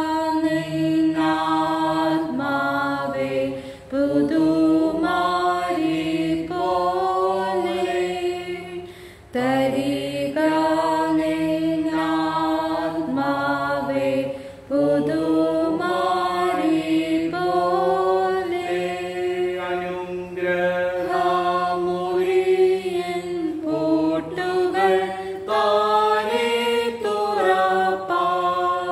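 A Malayalam church hymn sung slowly, in long held phrases with short breaks for breath between them.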